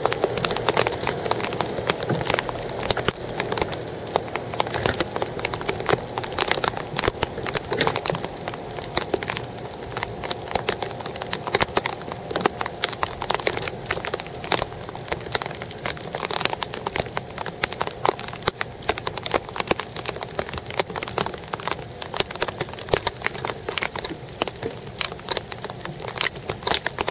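Rain pattering: a steady stream of dense, irregular ticks.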